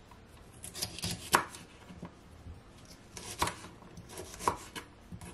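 Kitchen knife cutting the hard core of a cabbage down onto a wooden cutting board: a few separate sharp strokes with pauses between them, the clearest about a second in and again past three seconds.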